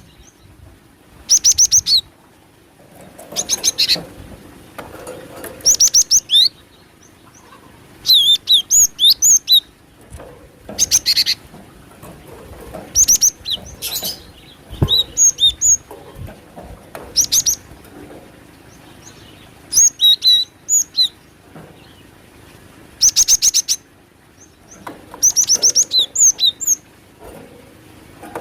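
Gelatik batu (cinereous tit) calling in a lure recording: short bursts of rapid, high, repeated notes come roughly every two seconds.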